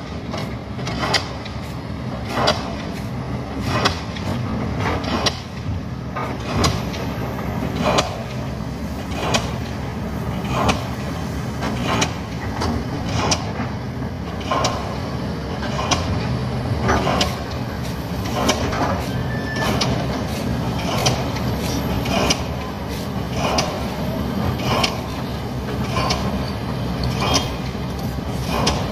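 A pile-driving rig hammering ground piles into the earth: a sharp, heavy strike about every 1.3 seconds, keeping an even beat. Underneath runs the continuous drone of heavy-machinery diesel engines.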